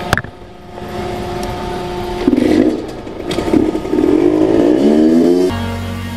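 Small 49cc enduro motorcycle's engine revving up in several quick rising sweeps, after a sharp knock at the very start. The engine sound cuts off abruptly near the end.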